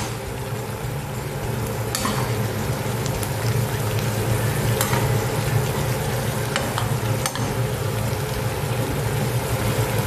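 Green beans and squash sizzling in a frying pan as they are stirred, with a utensil clicking against the pan a few times. A steady low hum runs underneath.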